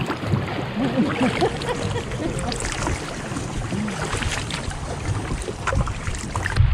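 Kayak paddles dipping and splashing in sea water, with wind rumbling on the microphone.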